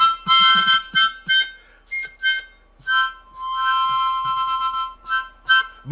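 Harmonica played: a quick run of short notes, then a long held chord of two notes from about three seconds in, ending with a few more short notes.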